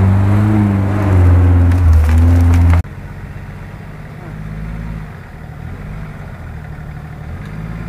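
A small off-road 4x4's engine working hard as it crawls through a creek bed, its pitch rising and falling. It cuts off abruptly a little under three seconds in, giving way to a quieter, steady engine idle.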